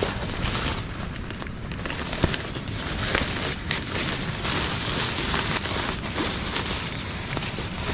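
Camping stove burner hissing steadily under a pot of water coming up to the boil, with scattered small clicks and crackles and one sharper click about two seconds in.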